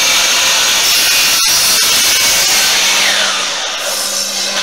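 DeWalt sliding miter saw running and cutting through wood, with a short sharp crack about a second and a half in. Near the end the motor's pitch falls as it winds down, and the sound drops away.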